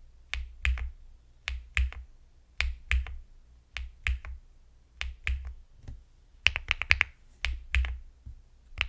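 Keystrokes on an Elecfox Inky75 aluminium 75% mechanical keyboard with HMX Matcha Butter switches: a key pressed over and over, roughly once a second, each press and release giving a pair of sharp clacks, with a quick run of clacks about six and a half seconds in.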